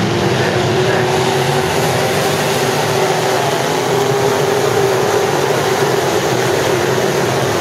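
A pack of dirt-track sport modified race cars racing around the oval, their V8 engines a loud, steady drone with a held engine note.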